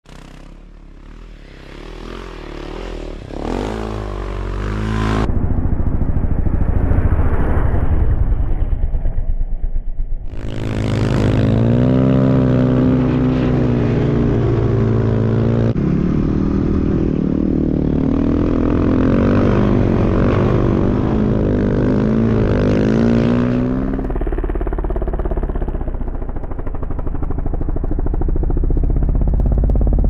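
Snow bike engine revving up and down under load while riding through deep powder, its pitch rising and falling repeatedly. The sound changes abruptly several times, and it starts quieter and builds over the first few seconds.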